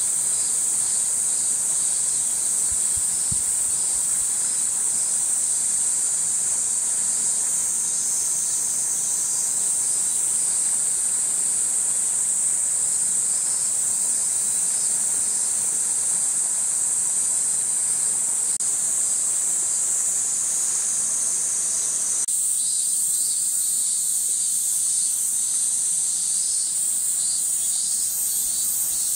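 Cicadas shrilling in a steady, high-pitched chorus.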